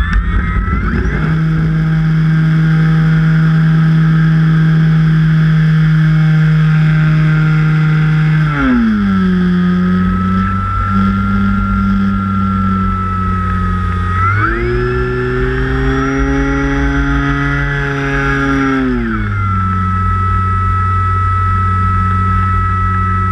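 Brushless electric motor and propeller of an E-flite Carbon-Z Cub RC plane in flight, a steady whine that changes pitch with the throttle: it drops about eight seconds in, rises again around fourteen seconds, drops near nineteen seconds and starts to climb again at the very end.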